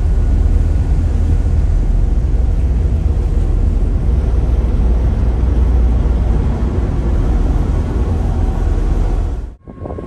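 Steady low rumble of a ferry under way, with wind buffeting the microphone. It cuts off suddenly near the end.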